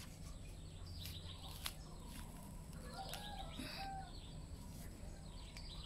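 Faint scraping and crunching of a small garden trowel digging into potting soil, with a few soft clicks, and birds chirping here and there behind it.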